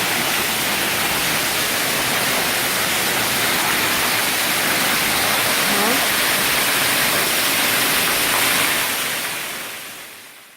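Waterfall rushing, a loud, steady wash of falling water that fades out near the end.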